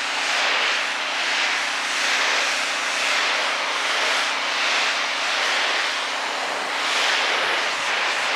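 Briggs & Stratton S1800 electric pressure washer running, its high-pressure water jet hissing against vinyl siding over a steady hum from the electric motor and pump. The hiss swells and fades a little as the wand sweeps across the wall.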